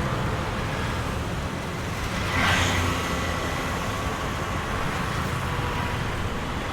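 Road traffic: a steady rumble of engines and tyres, with one vehicle passing close by about two and a half seconds in, its sound swelling and fading.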